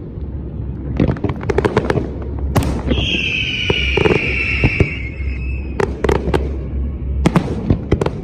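Fireworks display: clusters of sharp bangs and crackles. About three seconds in, a shrill whistle holds for about two seconds, dropping slightly in pitch, before more bangs.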